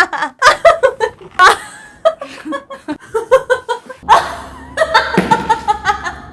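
A young woman laughing in quick repeated bursts, with a breathier laugh from about four seconds in.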